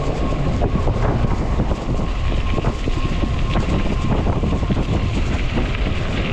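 Wind buffeting the microphone with the road rumble of a fat-tire e-bike being ridden, with scattered small knocks and a faint steady whine that fades out near the end.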